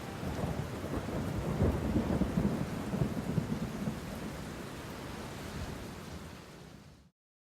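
Thunderstorm: steady rain with low rumbling thunder, slowly fading and stopping near the end.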